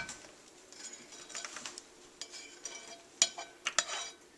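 Cooking utensil clinking and scraping against a pot as butter and onions are stirred in, with a few sharper clinks about three seconds in.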